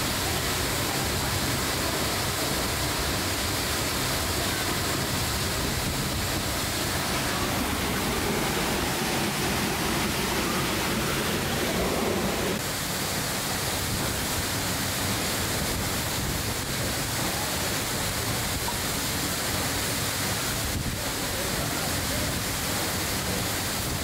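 Steady rush of a tall waterfall, Tiger Falls, and its stream, an even, constant noise of falling and running water. Its tone shifts abruptly about halfway through.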